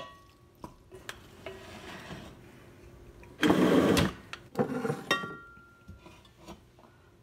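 Cooking in a hot pan: a metal utensil clinks against the pan several times, some clinks ringing briefly, with a loud hiss lasting under a second about three and a half seconds in.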